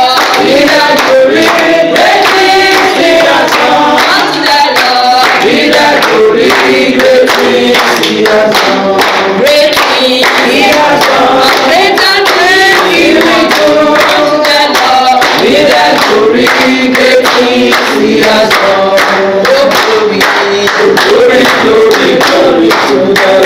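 A group of women singing a song together, with hands clapping along to the beat.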